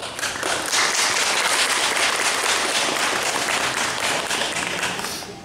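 Audience applauding. The clapping swells in about half a second in, holds steady, and fades out just before the end.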